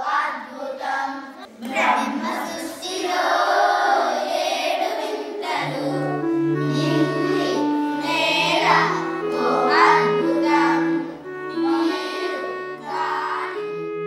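Children singing a song together, with held instrumental notes coming in under the voices about halfway through.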